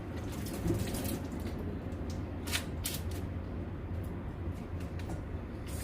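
An onion being washed by hand: a scatter of brief splashing and handling noises, strongest about two and a half to three seconds in, over a steady low hum.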